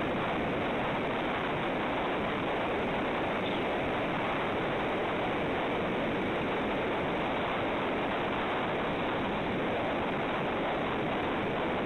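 Steady rushing noise of wind and sea surf on the eagle nest camera's microphone, unchanging throughout.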